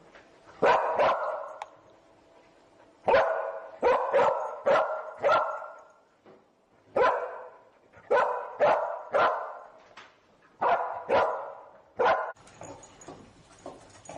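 Search dog barking repeatedly in short bursts of one to five sharp barks, about fifteen in all: the bark alert that a cadaver dog gives when it indicates a scent.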